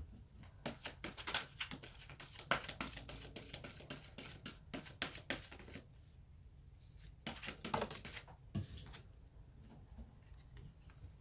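A deck of tarot cards being shuffled by hand: a quick run of crisp card snaps and riffles for about five seconds, a short lull, then a few more snaps.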